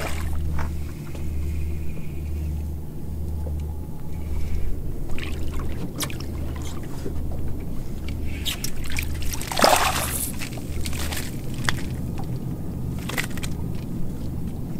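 Splashing and sloshing water as a hooked speckled trout is fought and reeled up to the side of a boat, with a sharper, louder splash about two-thirds of the way through. Underneath runs a low hum that pulses about once a second.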